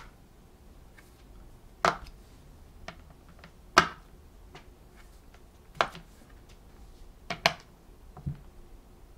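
Silicone bubbles on a Go Pop Colorio push-pop game being pressed down one at a time: sharp single pops about every two seconds, a quick pair near the end, then a duller thump.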